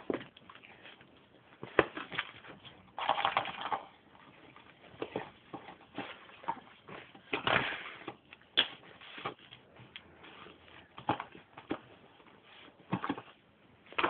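Cardboard chocolate box and its wrappers crackling and rustling as a dog noses and rummages inside it for a chocolate, in irregular short bursts.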